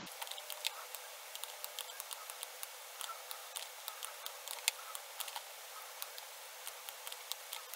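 Computer mouse clicking repeatedly at an irregular pace, several clicks a second in places, as points are set one by one. Faint steady hiss underneath.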